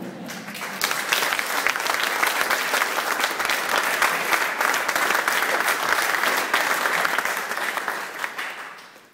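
Audience applauding, many people clapping; it builds up in the first second, holds steady, and dies away near the end.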